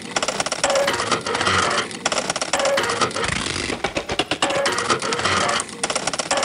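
Bernina sewing machines stitching in short rhythmic bursts of rapid clicking, each about a second long with brief gaps between, and a low thump under some of them. The machine sounds are still fairly raw, arranged as a piece of music.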